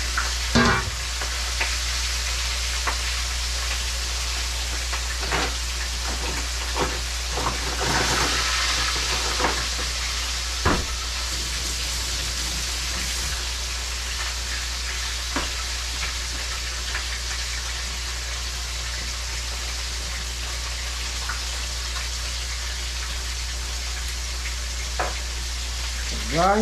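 Fish frying in a pot of hot oil: a steady sizzle with scattered sharp pops and crackles, over a constant low hum.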